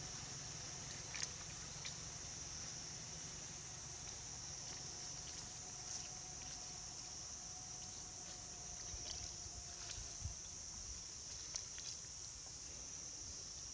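A steady, high-pitched insect chorus, with a few scattered soft clicks.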